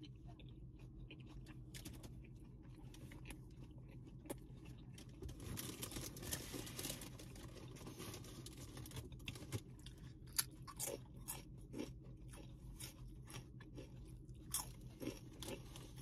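Faint chewing and crunching of a mouthful of sub sandwich with lettuce, with scattered small mouth clicks and a slightly louder stretch of chewing noise around the middle. A steady low hum runs underneath.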